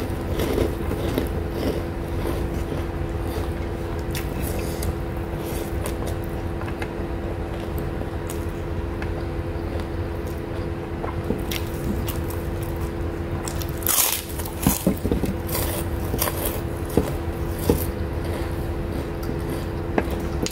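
Close-miked eating: biting and chewing with crisp crunches of keropok crackers, the loudest crunches in a cluster about two-thirds of the way through, over a steady low hum.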